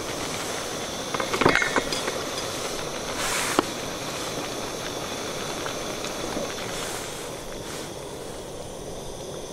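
Steady hiss of a portable gas canister stove burning under a steaming pot. A few light metal clinks come about a second and a half in, and another single clink at about three and a half seconds, as the pot's wire handle is handled.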